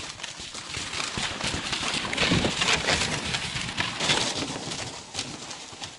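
Footsteps crunching through snow at a walking pace, a quick run of crisp crunches.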